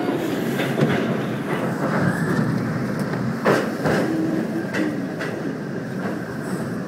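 New York Subway train pulling out of a station, heard from the front of the train: a steady rumble of wheels and running gear with scattered sharp clacks on the track, the loudest about three and a half seconds in.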